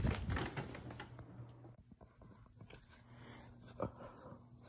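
Rustling handling noise as the phone is swung around, loudest at the start and dying away after about two seconds. Then a faint steady low hum, with a single sharp click near the end.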